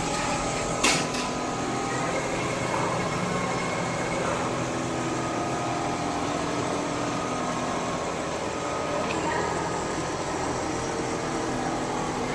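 Steady mechanical hum from a running single-needle quilting machine, with one sharp click about a second in.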